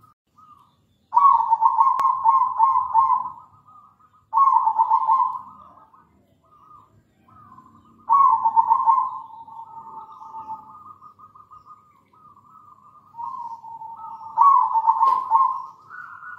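Zebra dove (perkutut) singing: four loud phrases of quick repeated cooing notes, with softer coos between them. The phrases come about a second in, at about four and eight seconds, and near the end.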